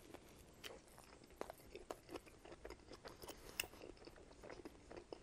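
Quiet close-up chewing of a bite of pineapple-and-pepperoni pizza, with irregular small clicks and crackles of the mouth working through crust and cheese.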